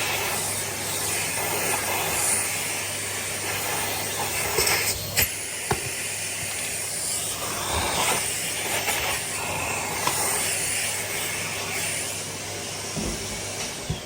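Numatic James vacuum cleaner running, a steady suction hiss over a low motor hum, as dust is vacuumed off the Dyson cyclone parts, with a couple of sharp knocks of the nozzle about five seconds in. It is switched off near the end and begins to wind down.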